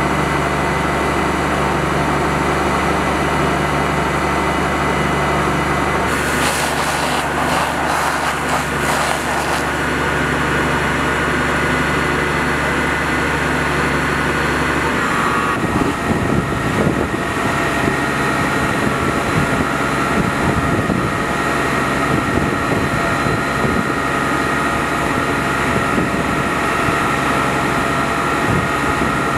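A fire engine's engine running steadily, with a few seconds of hissing about six seconds in. About halfway through, the even low hum gives way to a rougher, uneven rumble.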